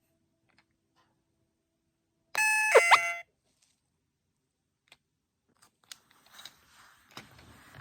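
A toy intercom button plays a two-note electronic doorbell chime, the second note lower ("ding-dong"), with a rising boing-like sweep over it, once about two and a half seconds in. Faint light clicks and rustling follow near the end.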